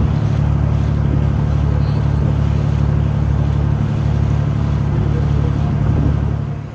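An engine running steadily with a deep, even hum, fading out near the end.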